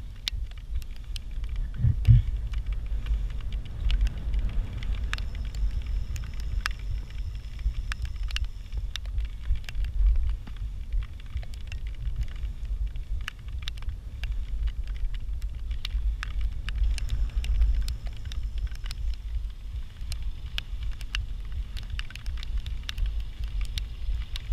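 Wind rumbling and buffeting on the microphone of a camera riding along on a bicycle, with many small clicks and ticks from the moving bike throughout.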